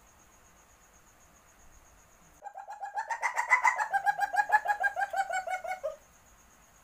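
Palm civet in heat giving its mating call: a rapid string of clucking pulses, about eight a second, starting about two and a half seconds in and lasting about three and a half seconds, rising slightly in pitch and then falling toward the end. A faint steady high tone sits under the quiet before it.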